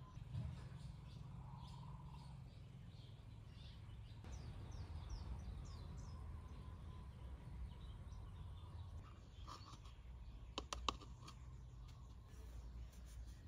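Faint outdoor ambience with a steady low rumble and small birds chirping, mostly in the first half. A quick cluster of sharp clicks about three quarters of the way through is the loudest sound.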